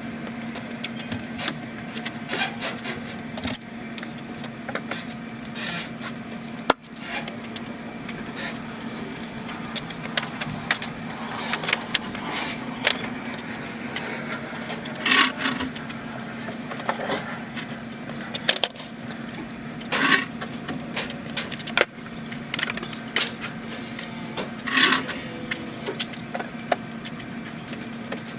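Scattered knocks, clicks and scrapes of handling wood and tools, over a steady low hum.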